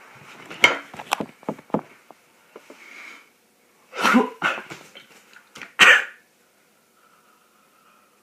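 A person coughing hard on a mouthful of dry ground cinnamon: a cluster of sharp coughs in the first two seconds, then more bursts around four seconds and one strong one near six seconds.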